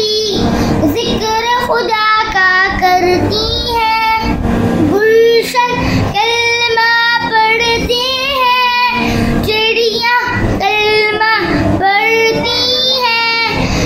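A young boy singing a naat (Islamic devotional song) in a high voice, held notes wavering, with short breaths between phrases.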